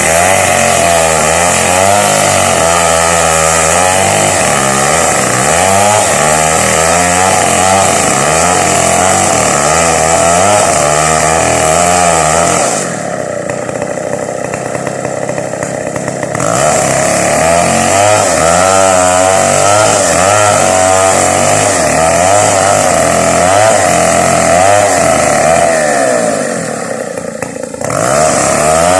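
Chainsaw running hard at high revs, its pitch wavering as it cuts into a coconut trunk to saw it into lumber. Twice it eases off to a lower, quieter note for a few seconds: once about halfway through and again near the end.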